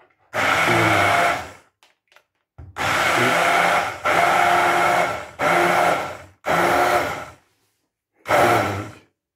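Electric hand blender running in short bursts of one to two seconds, switched on and off about six times, with a steady motor whine, as it purées peeled tomatoes in a plastic bowl into a smooth sauce.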